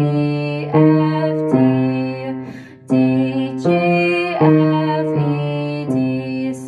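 Keyboard accompaniment of a beginner play-along exercise: a slow line of evenly spaced held notes, a new note about every three-quarters of a second.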